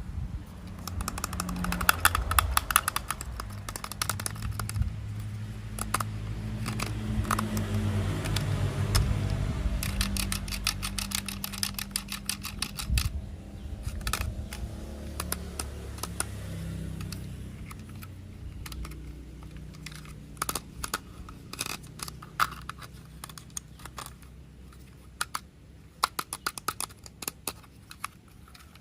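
Plastic toy train parts clicking and rattling as they are handled and fitted together. A low steady hum runs underneath and fades out about two-thirds of the way in.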